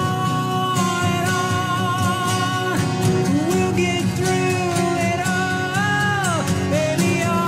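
Two acoustic guitars strummed together under a man singing long held notes that glide up and down between pitches.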